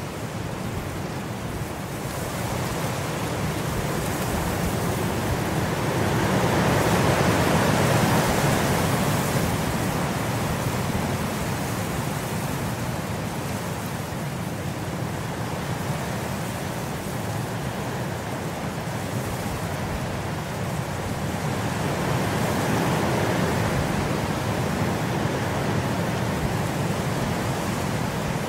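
Steady rain sound, an even hiss of rainfall that swells louder twice, once about a quarter of the way in and again near the end.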